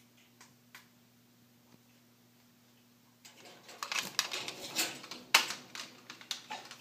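A few faint taps, then from about three seconds in a burst of clattering and fluttering: an African red-bellied parrot beating its wings and attacking a hanging plastic talking toy, which knocks and rattles on its chain, with one sharp loud knock about a second before the end.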